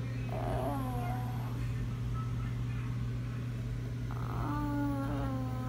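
Two long, drawn-out wailing cries that fall in pitch, one starting just after the start and another about four seconds in, over a steady low hum.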